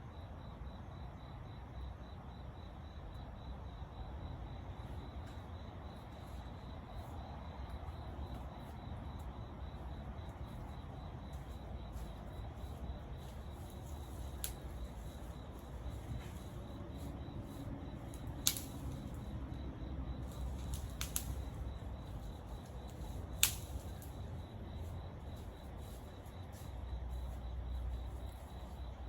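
Campfire burning with a low steady rumble and a few sharp pops of burning wood, about four through the middle, over a faint steady cricket chirping.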